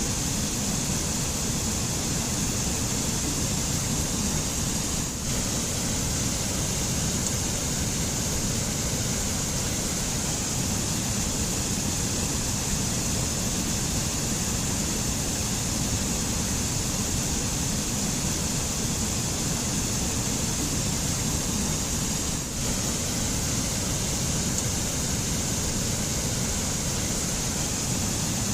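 White water of a mountain stream rushing over rocks into pools: a steady rushing noise.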